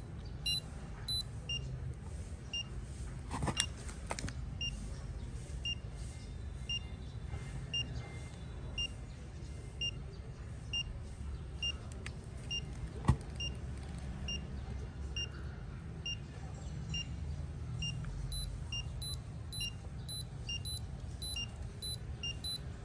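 Fingertip pulse oximeter beeping once per heartbeat: short, high beeps a little under two a second, in step with a pulse of about 100 a minute. A couple of handling knocks, the sharpest near the middle.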